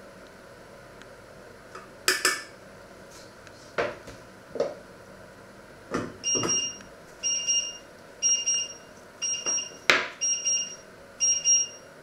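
Knocks and clatter of kitchen utensils and pots. From about six seconds in, an electronic beeper sounds a high two-tone beep about once a second, like a kitchen timer or appliance signal going off.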